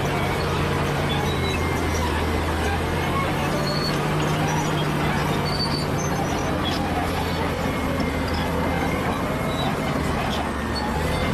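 Bulldozer's diesel engine running steadily at work, a constant low drone with short high squeaks scattered through it.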